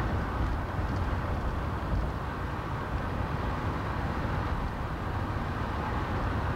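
Steady road and engine noise of a moving car, heard from inside the cabin: an even, low rumble with no change in pace.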